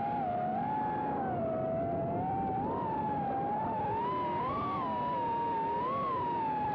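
RC short course truck's electric motor and gears whining from onboard, the pitch rising and falling with the throttle, over the rumble of tyres on the dirt track.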